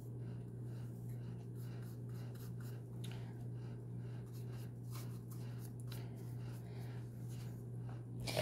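Faint, repeated strokes of a paintbrush brushing paint onto a dino mask, over a steady low hum.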